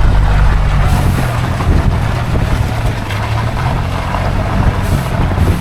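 Ford Bronco driving on a dirt trail: a steady low engine drone under loud, constant tyre and road noise.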